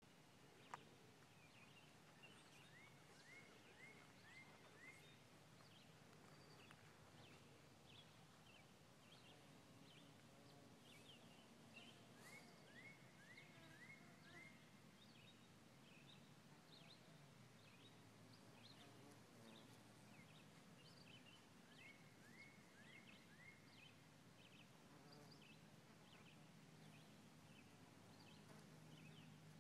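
Faint birdsong: several birds chirping, one repeating a phrase of about five quick rising notes three times, over a low steady hum. A single sharp click sounds less than a second in.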